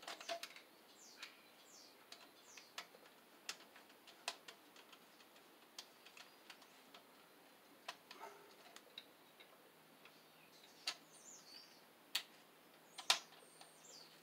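Faint, irregular small metal clicks and ticks as a terminal screw, with a wire looped around it, is worked back into a circuit breaker by hand; the sharpest click comes about a second before the end.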